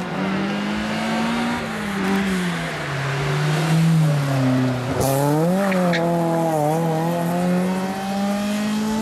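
Rally car engine passing through a corner: the engine note drops as the car slows into the bend, gives a sharp rev blip about five seconds in, then climbs steadily as the car accelerates away.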